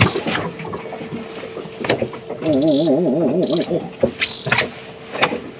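Fishing reel being cranked while reeling in a hooked fish: a mechanical whine that wavers rapidly up and down in pitch for about a second and a half midway, over a steady hum, with a few sharp knocks of rod and tackle.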